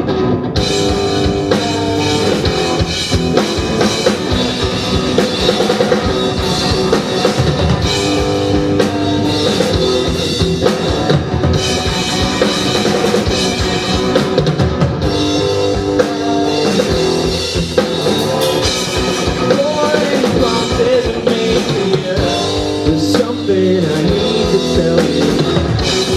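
Rock band playing live: a drum kit keeping a steady beat under electric guitars and bass.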